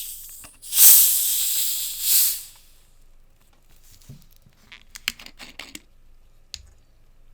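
Carbonated Coca-Cola fizzing: a loud hiss starts about a second in, lasts about two seconds and swells again near its end. Later come a low knock and a quick run of light clinks of ice cubes.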